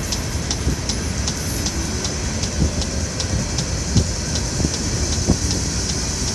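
Freight train's open-top hopper cars rolling past with a steady rumble of steel wheels on rail and occasional heavier thumps as wheels cross rail joints. Over it a grade-crossing warning bell rings steadily, about two to three strikes a second.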